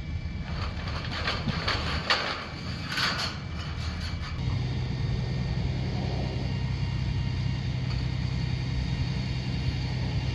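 A Volvo 160 excavator's diesel engine runs steadily. In the first few seconds its bucket clanks and scrapes against the sheet-metal roofing in a string of sharp metallic strikes. About four seconds in the clatter stops and the engine hum grows stronger and steadier.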